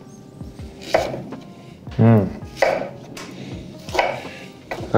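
Knife cutting through peeled pear onto a wooden cutting board, a few separate cuts and knocks, over faint background music. A brief low hum about two seconds in is the loudest sound.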